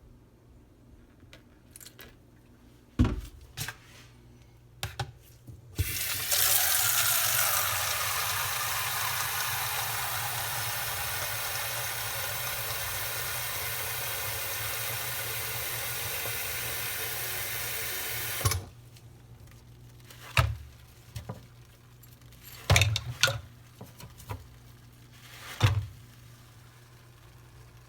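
A water tap running hard into a sink for about twelve seconds, then cut off suddenly. Before and after it come scattered knocks and clunks of things being handled.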